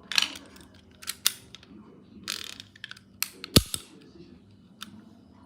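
Revolver and its packaging being handled: a series of sharp mechanical clicks and brief rustles, irregularly spaced, the loudest a click with a dull thump about three and a half seconds in.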